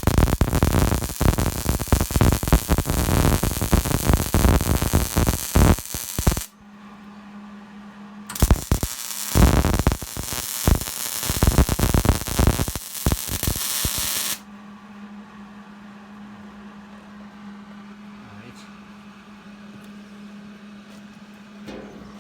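Electric welding arc crackling in two runs of about six seconds each, with a short break between, followed by a steady low hum.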